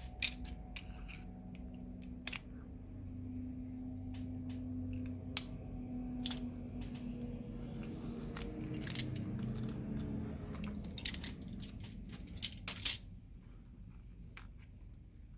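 Scattered sharp clicks and taps of small metal hand tools, such as tweezers, handled on a workbench during a fitness-tracker repair, with a burst of the loudest clicks a little before the end. A low steady hum runs underneath.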